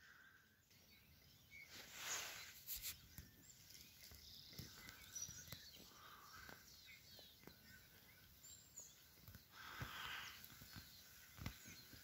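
Faint calls and chirps of small songbirds in the trees. A few soft clicks and two brief rustling swells, about two seconds in and near the end, are heard over them.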